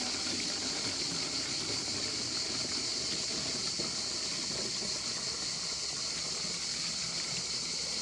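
Water pouring from a tilted metal bucket into the narrow necks of plastic bottles, a steady trickle, over a constant high-pitched insect chorus.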